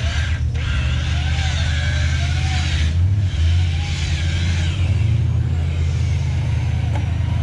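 Modified four-wheel-drive competition truck's engine running hard as it drives down into a muddy bog hole, the revs rising and falling.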